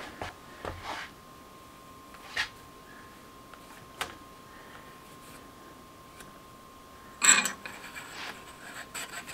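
A few small handling clicks, then from about seven seconds in a rough metal-on-metal rubbing as an AR-15 barrel nut is spun by hand onto the upper receiver's threads, which are coated with copper anti-seize.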